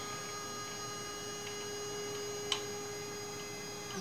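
A 1610 desktop CNC laser engraver running a size-test pass, its laser head tracing the outline over a cedar coaster: a steady electric hum with a high whine. There is a single click about two and a half seconds in.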